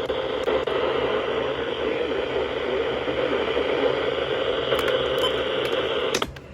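Radio receiver static: a steady hiss of noise with no voice or tones, heard through the narrow sound of a radio. It drops off suddenly near the end.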